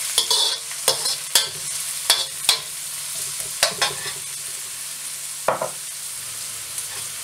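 Chopped shallots and garlic sizzling in hot oil in a wok, with a metal slotted spoon scraping and clinking against the pan several times, mostly in the first four seconds and once more about five and a half seconds in.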